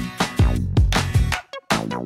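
Background electronic music with a steady beat, cutting out briefly near the end.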